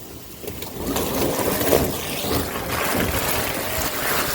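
Electric buggy's wheels churning through wet mud, with steady splashing and sloshing that builds up about a second in.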